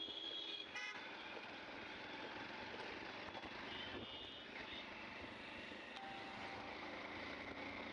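Steady wind and road noise from a moving Hero commuter motorcycle, its engine running underneath as it rides through traffic. A short high tone sounds about four seconds in.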